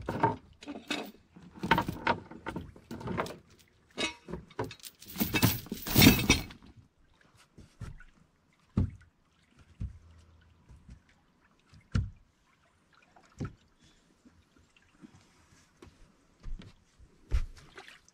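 Anchor chain rattling and clanking in a run of bursts for about six seconds, then a handful of single knocks and bumps on the boat.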